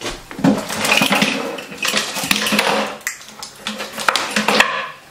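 Small hard objects clattering and rattling as a wooden drawer of hair tools and tangled cords is emptied by hand: repeated knocks and scrapes of plastic and metal bits against each other and the drawer.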